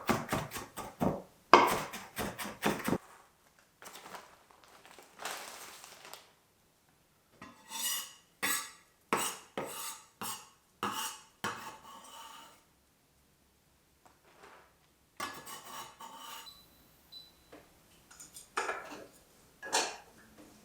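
Irregular clinks and knocks of dishes and cutlery being handled, in short clusters with a few quiet pauses.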